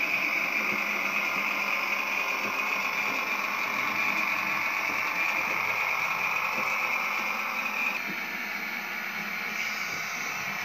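Märklin class 724 railbus model running on its track, its mfx digital sound decoder playing a steady diesel railcar engine sound through the model's small loudspeaker, mixed with the whirr of the model's running gear. The sound drops a little about eight seconds in.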